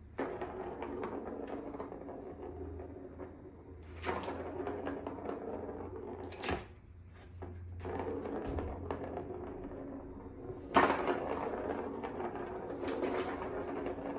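A small plastic ball rolling and rattling around the channel of a plastic ball-track cat toy as a cat bats it with its paws. A few sharper knocks come as the ball or paw strikes the plastic, the loudest about three-quarters of the way through.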